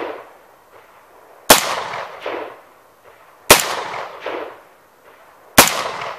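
Three shots from a 10.5-inch-barrel AR-15 pistol in 5.56, about two seconds apart. Each sharp crack is followed a moment later by an echo rolling back.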